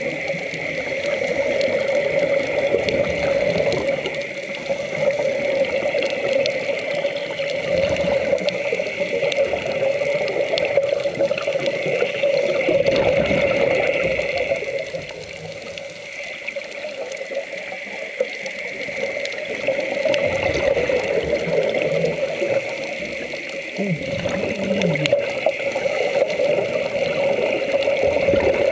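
Steady water noise of a large aquarium tank, trickling and bubbling over a constant hum, easing off for a few seconds in the middle.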